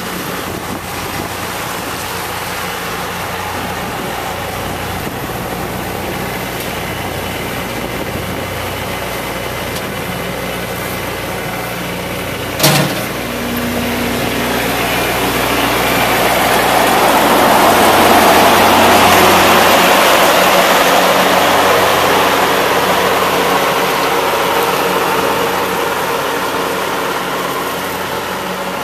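Kubota L3400 compact tractor's diesel engine running steadily while its rear rotary cutter mows tall weeds. A single sharp knock comes about halfway through, then the sound swells as the tractor passes close and fades again.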